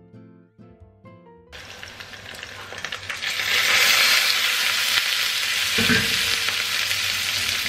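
Pork belly slices under shredded cabbage frying loudly in a pan for okonomiyaki, the sizzle setting in about a second and a half in, after a few quiet plucked guitar notes.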